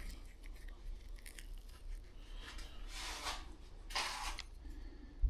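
Small scraping, rustling and clicking handling sounds of hand work on a deer mount, with two louder rasping strokes about three and four seconds in, over a steady low hum.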